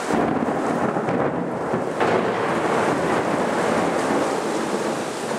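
Thunder rumbling over heavy rain, loud and continuous. About two seconds in, the hiss turns brighter.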